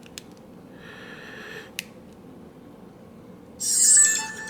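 Small clicks and rubbing from handling a partly reassembled compact digital camera while trying to power it on with its new LCD screen fitted, with a louder scratchy rustle near the end.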